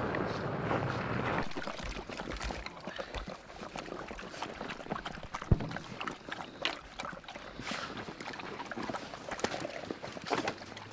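A pickup truck driving on a snowy track, cutting off about a second and a half in. Then light crunching, rustling and clicking as hounds mill about in the snow, with one sharp knock about five seconds in.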